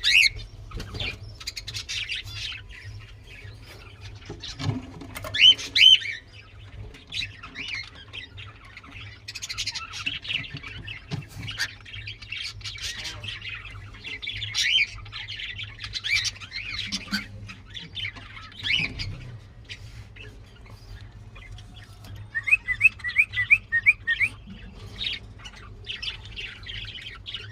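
Pet cockatiels chirping and squawking in a lively, continuous stream of short calls. Near the end comes a quick run of about seven short rising chirps.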